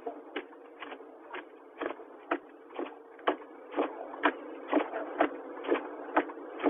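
Car hazard-light flasher clicking steadily inside the cabin, about two clicks a second, heard through a phone's microphone.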